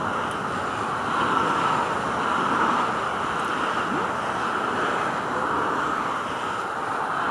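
Boeing 747-400's four turbofan engines at takeoff thrust during the takeoff roll, heard from far across the airfield as a steady rushing noise.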